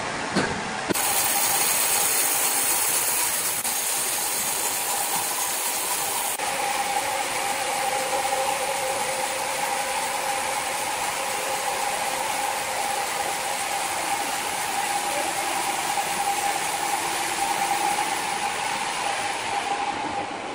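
Large horizontal band-saw mill running steadily, starting about a second in, with a constant high tone over a broad mechanical rush.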